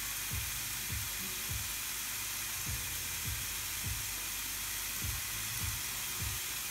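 Ribeye steak sizzling steadily on the plates of a closed Tefal Optigrill XL contact grill, with music playing in the background.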